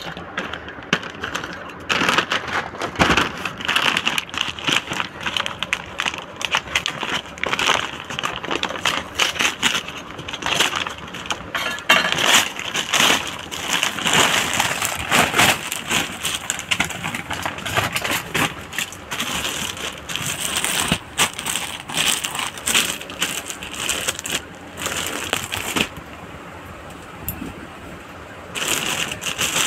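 Brown kraft-paper mailer bag being torn open and crumpled by hand: continuous crinkling and rustling with dense crackles. It eases off for a couple of seconds near the end, then a clear plastic wrapper crinkles.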